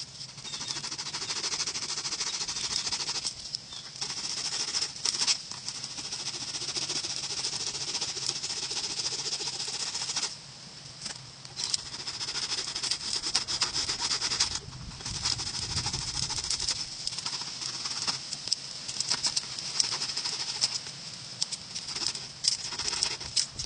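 Fine-toothed hand saw rasping through the hard, hollow shell of a dried gourd in quick, repeated strokes, with short pauses about ten and fifteen seconds in.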